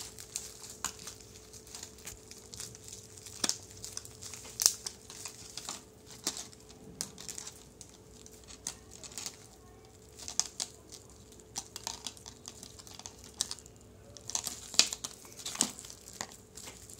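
Thin plastic packaging and bubble wrap crinkling and crackling as hands handle the earphones and unwind their cable. The crackles are sharp and irregular, with a few louder ones.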